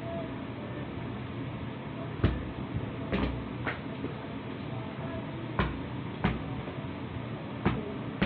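Soccer ball being juggled with the feet: six or seven separate thumps at uneven intervals.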